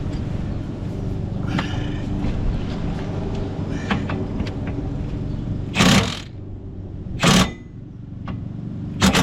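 Two short, loud bursts about a second and a half apart as a bolt on the car's rear strut is tightened, over a steady low hum.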